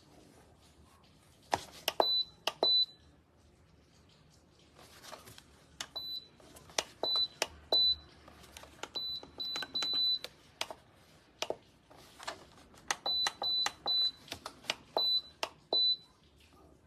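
Buttons on an electronic tower fan's control panel being pressed in quick runs. Each press gives a click and a short high beep, about twenty in all in three bursts, over a faint steady hiss.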